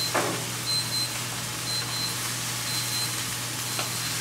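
Chicken pieces sizzling on a hot gas grill, an even hiss over a steady low hum, with a couple of light clicks of metal tongs on the grate.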